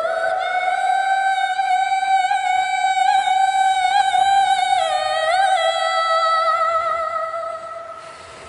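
Background music from a song: one long held high note, stepping down slightly with a small turn about halfway, then fading near the end.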